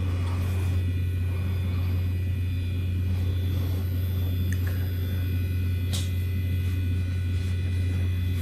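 Power Macintosh G4 'Yikes' tower running as it boots, now that its loose IDE connector has been reseated: a steady low hum and whir of its fan and drives, with a short click about six seconds in.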